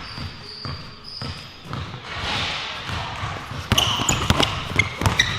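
Basketball dribbling on a gym floor, with sneakers squeaking; a quick run of sharp squeaks and slaps comes about four seconds in.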